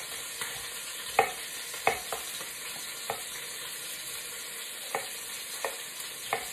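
A chef's knife slicing an onion, knocking on a wooden cutting board every second or so at an uneven pace. Underneath is the steady sizzle of chicken thighs searing skin-side down in olive oil.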